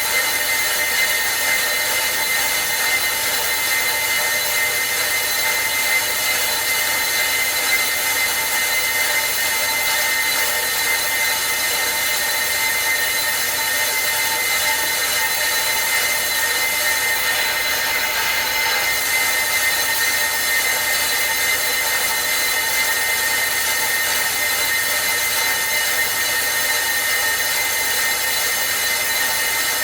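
Brake disc rotor being resurfaced on a brake lathe: a steady machining whine with a hiss, the same pitch throughout.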